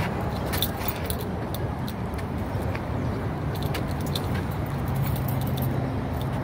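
A steady low motor hum with light metallic jingling and clicks over it; the hum grows firmer about five seconds in.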